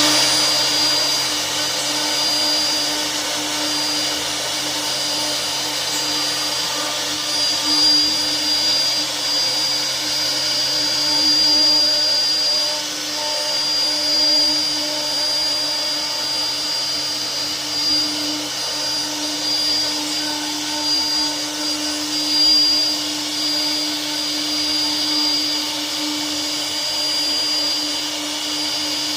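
CNC router spindle running steadily with a high whine while the router cuts, its loudness rising and falling slightly as the cut goes on.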